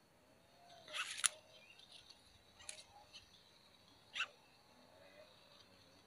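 Dry grass and nest material rustling and crackling as a greater coucal shifts on its nest. There are three short bursts: the first, about a second in, is the loudest and ends in a sharp click, and the others come near the middle and about two-thirds through.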